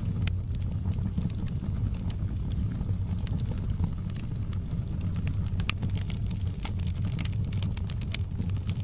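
Wood fire burning, with a steady low rumble of flame and frequent sharp crackles and pops, thicker in the second half.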